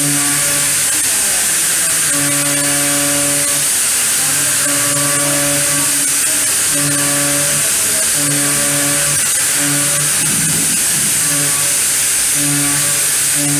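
CNC milling machine cutting metal on an iMachining toolpath: a steady high hiss, with a pitched humming tone from the cut that comes and goes in stretches of about a second as the end mill engages and leaves the material.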